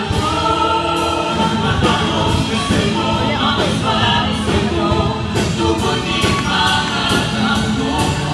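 Choir singing over live instrumental music with a steady beat.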